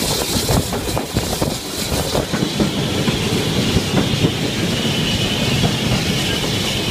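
BR Standard Class 4 2-6-0 steam locomotive 76084 under way, heard from its cab: wheels clattering over rail joints amid a constant rattling and knocking of the footplate. A faint high whine comes in about halfway through.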